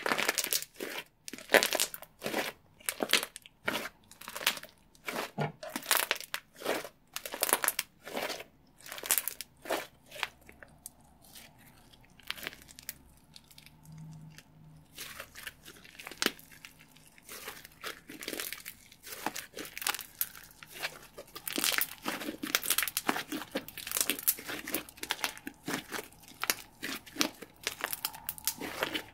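Bubbly slime kneaded and squeezed by hand, crackling and popping as trapped air bubbles burst in quick runs of sharp clicks. The crackling thins out for a few seconds in the middle while the slime is stretched, then picks up again.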